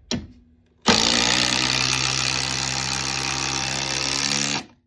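Milwaukee cordless impact driver running at full trigger, with a dense mechanical rattle over a steady motor whine. It starts about a second in and stops abruptly near the end.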